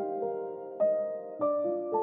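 Background music: a slow melody of struck notes left to ring on, a new note roughly every half second.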